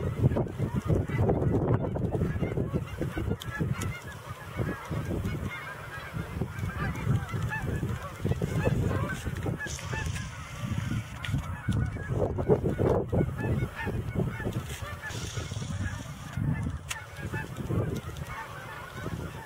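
A large flock of geese honking, many birds calling over one another in a continuous chatter, with a low rumble underneath.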